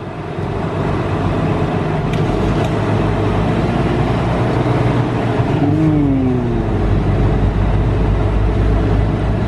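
Semi-truck diesel engine heard from inside the cab, a steady low drone that builds over the first second as the truck picks up speed. A brief falling tone sounds about six seconds in.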